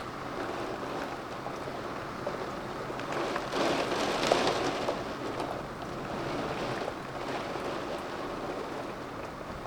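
Storm rain and wind heard through a window: a steady rushing that swells for a second or so about four seconds in.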